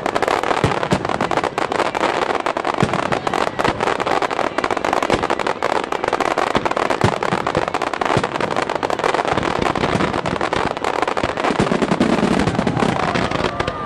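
Aerial fireworks shells bursting in quick succession: a dense, continuous crackle packed with many sharp pops and bangs.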